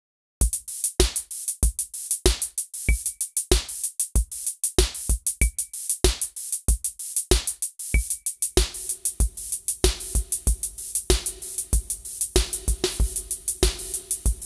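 Generative electronic music from the touchscaper app on an iPad: a drum-machine beat with a kick on every beat at about 95 BPM and crisp hi-hats, starting half a second in. About eight and a half seconds in, a sustained synth tone joins as the moodunits reverb is mixed in.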